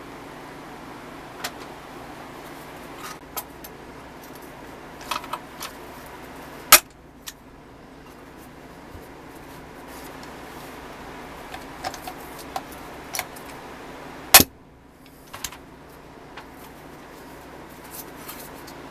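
Light metal clinks and taps from handling the pressed-steel body panels of a 1970s Tonka forklift toy on a workbench, with two sharper knocks about seven and fourteen seconds in, over a steady low hum.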